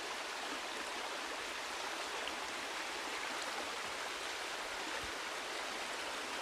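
Steady running water, an even rushing sound like a small stream pouring into a pond.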